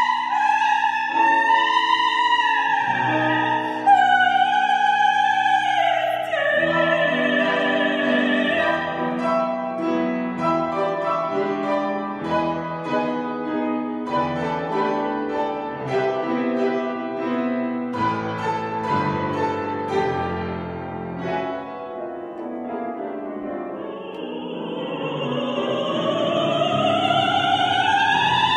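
Operatic soprano singing with a wide vibrato over piano accompaniment. The voice drops out for a passage of piano chords in the middle, then returns near the end in a long, slow upward glide into a high held note.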